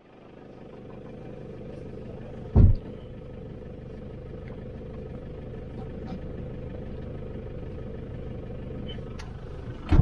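Toyota pickup truck's engine idling steadily, heard from inside the cab. About two and a half seconds in there is a single heavy thump as a load lands in the truck bed.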